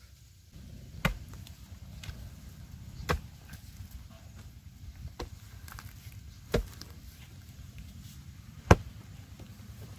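Long-handled spade chopping into a hard, dry clay termite mound: five separate strikes a second or two apart, the last one the loudest.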